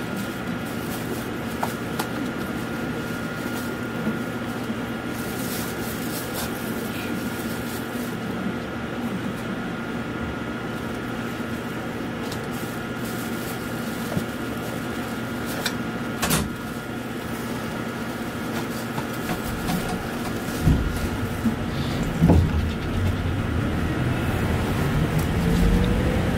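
Hankai Tramway car Mo 603 running, heard from inside: a steady hum with fixed tones and wheel-on-rail rumble, with a sharp click about halfway. The rumble grows louder over the last few seconds as a whine rises in pitch while the tram picks up speed.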